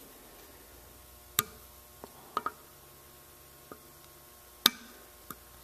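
Sharp metal clicks and taps, about seven of them and two louder than the rest: a screwdriver and a steel snap ring knocking against the bearing housing of a John Deere lawn-tractor mower-deck spindle as the ring is worked into its groove.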